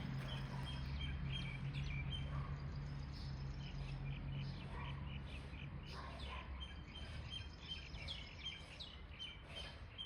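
Small songbirds chirping and twittering, many short high calls repeated quickly throughout, over a faint low steady hum.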